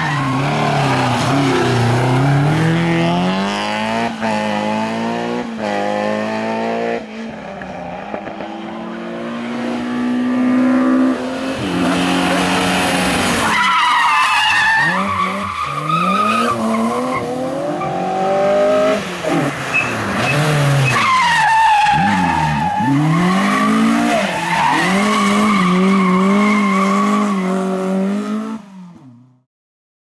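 Rally car engines revving hard and climbing through the gears as the cars are driven fast on a tarmac road, with tyre squeal. The sound fades out sharply near the end.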